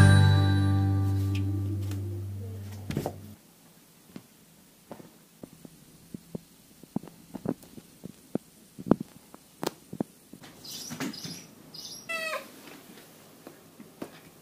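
Music fades out over the first few seconds, then a run of light taps and clicks as a kitten paws at the camera, and a short kitten meow a little after twelve seconds in.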